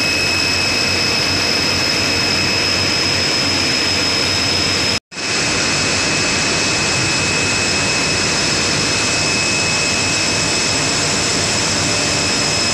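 Loud, steady din of running spinning-mill machinery: LMW LD2 draw frames drawing cotton sliver, with steady high-pitched whines over the noise. The sound cuts out sharply for a moment about five seconds in, then comes straight back.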